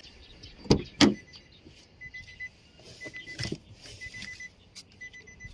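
Two sharp knocks close together about a second in, then a faint, high-pitched electronic beep that repeats roughly once a second.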